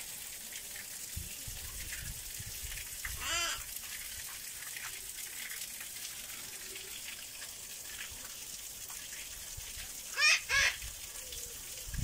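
Derbyan parakeets calling: one harsh call about three seconds in, then two loud calls in quick succession near the end, over a steady rushing background noise.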